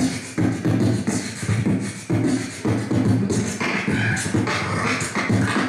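Human beatboxing into a handheld microphone: a steady rhythm of vocal kick-drum thumps, snare sounds and hissed hi-hats.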